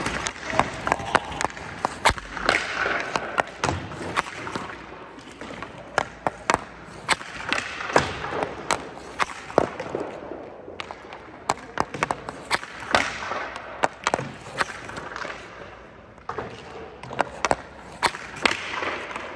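Ice hockey shooting drill: a rapid, irregular series of sharp cracks and thuds as a stick slaps pucks and the pucks hit the goalie's pads, with scraping sounds between the hits.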